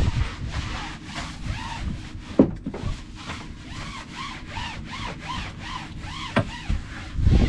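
Wash brush scrubbing the boat's deck in quick back-and-forth strokes, about two a second, with two sharp knocks.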